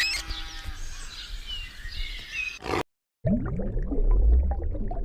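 Short bird chirps and whistled glides over a soft hiss, cut off abruptly; after a brief gap, a large animal's low growl with a deep rumble.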